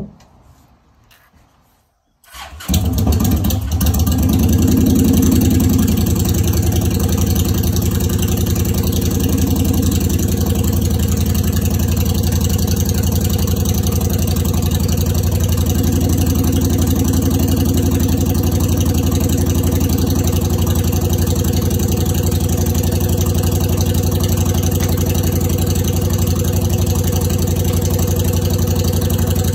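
Honda Shadow Spirit 750's V-twin engine started cold after sitting in the cold: a click, then about two seconds in the engine catches, revs briefly and settles into a steady idle.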